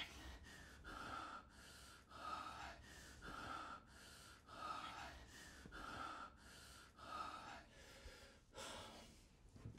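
A man's heavy gasping breaths, about one a second, with a sharper, louder gasp near the end.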